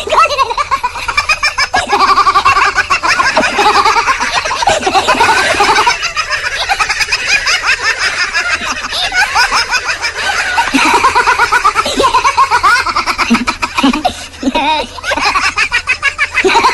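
Prolonged hearty laughter, going on in quick pulses with only short breaks.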